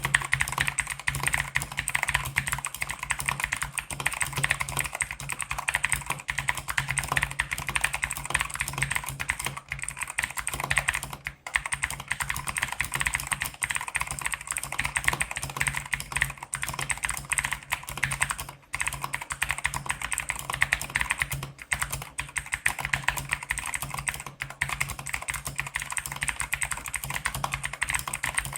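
Fast, continuous typing on an AJAZZ AK33 mechanical keyboard with clicky blue Zorro switches: a dense stream of sharp key clicks, broken by a couple of brief pauses.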